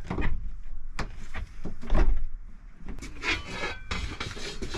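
A few sharp knocks, then scraping and rubbing, as a window with its rubber gasket is handled and worked into the cut-out in a van's sliding door.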